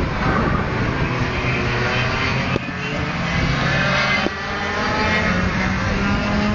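125cc six-speed shifter karts' two-stroke engines at racing speed, the engine pitch climbing and falling as they drive, with two brief breaks in the note.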